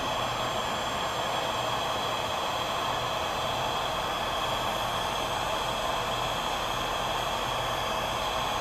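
Porter-Cable heat gun running steadily, a constant rush of blown hot air as it shrinks heat-shrink tubing over headlight wiring.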